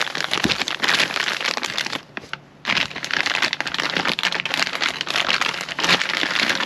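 Clear plastic wrapping crinkling and rustling as a pair of aluminium bicycle handlebars is handled in its bag, with a brief pause about two seconds in.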